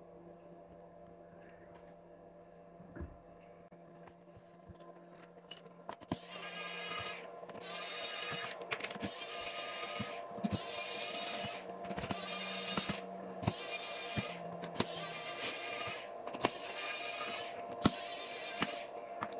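Electric precision screwdriver running in short bursts of about a second, about nine times in a row, backing out the screws of a laptop's bottom case. Before it starts, about six seconds in, there is only a low steady hum with a couple of light clicks.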